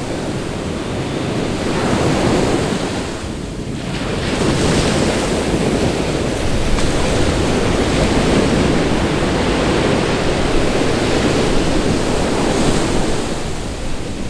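Ocean surf rushing and breaking in a steady roar of noise. It swells about two seconds in, eases briefly, then builds again and stays strong, with wind buffeting the microphone.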